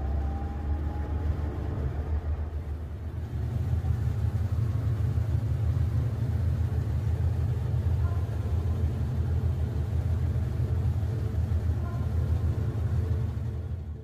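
IFB TL-SBRS 8 kg top-load washing machine in its spin cycle: a steady low rumble of the drum spinning a load of clothes, growing stronger about three seconds in.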